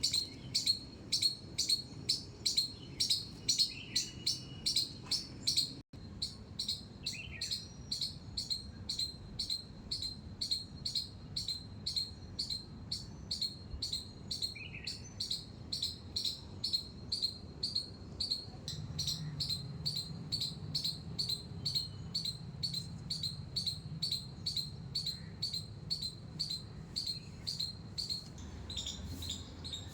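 A squirrel squeaking over and over: short, high, sharp chirps in a steady rhythm of about two to three a second. They are louder in the first six seconds and softer and a little quicker after a momentary break.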